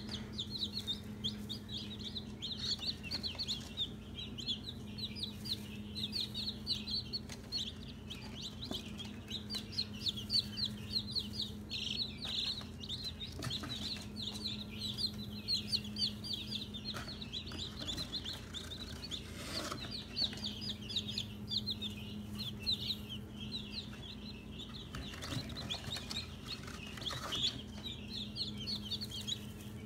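A box of newborn chicks (Black Copper Marans, Leghorns and Easter Eggers) peeping continuously: many short, high chirps overlapping without a break.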